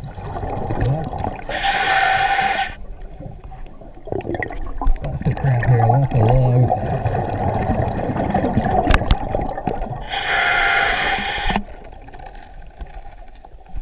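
Underwater breathing of a diver on a regulator: exhaled bubbles rush out twice, about two seconds in and again near the end, over the low water noise of crawling along the river bottom. Muffled words through the mask come in the middle.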